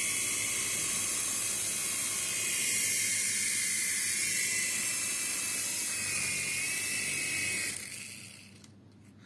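Toy RC helicopter's small electric motors spinning its two stacked rotors: a steady high whine with a hiss of air. It winds down and stops near the end.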